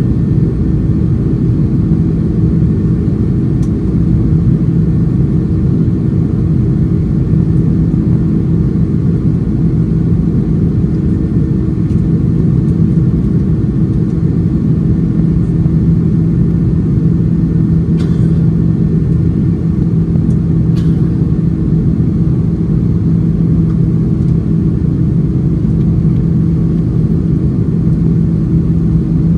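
Cabin noise of an Airbus A330-300 airliner in climb, heard over the wing: a steady, loud low rumble of the General Electric CF6-80E1 turbofans and the airflow, with a steady low hum running through it.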